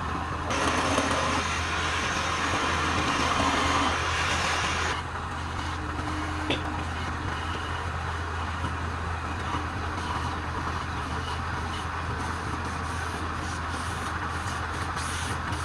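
A wood lathe running with a steady hum. For about the first five seconds a louder hiss sits over it, then stops suddenly, leaving the quieter hum of the running machine.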